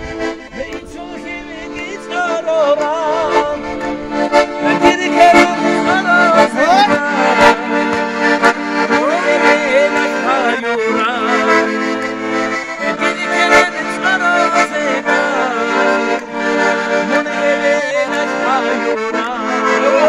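Button accordion playing an Avar folk tune over steady held chords. Getting louder about two seconds in, a man's voice sings along with wavering pitch.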